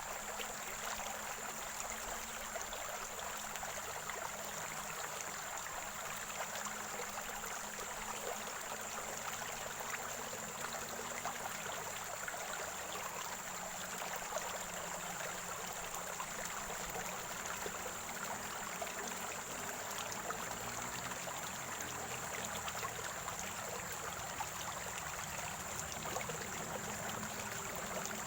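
Spring-fed stream gurgling and trickling steadily, with a thin steady high-pitched tone above the water.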